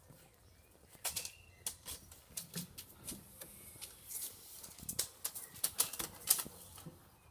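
Weimaraner puppies scrabbling about in a wooden whelping box: an irregular run of scratchy clicks and rustles from their claws and paws on the fleece bedding and board walls, starting about a second in.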